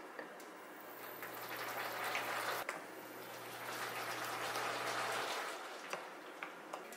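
Boiled soy-sauce pickling brine poured from a bowl into glass jars of greens, the liquid splashing and filling; a wooden spoon then presses the leaves down in the brine.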